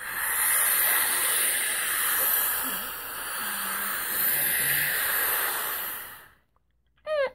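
A man imitating ocean waves with his mouth: a breathy hiss that swells, ebbs about halfway and swells again, fading out after about six seconds. Right at the end, the first of some high vocal chirps begins.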